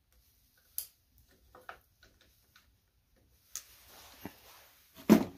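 Scattered small clicks and ticks of pliers and a fuel-line clamp being worked by hand while the gas line is pushed onto a small-engine carburetor, with a louder knock near the end.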